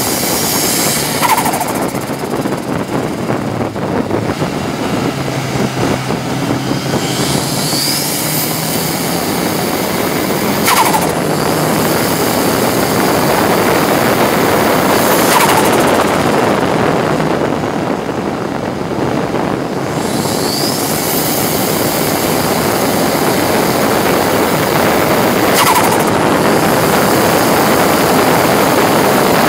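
Ford Sierra RS Cosworth race car's turbocharged four-cylinder engine at full throttle, heard from inside the stripped cabin, revving up through the gears with a sharp break at each upshift and a couple of brief lifts. Wind and road noise run under it.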